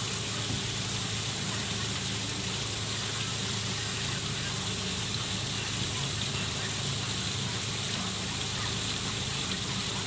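Small waterfall splashing steadily into a koi pond, with a low steady hum underneath.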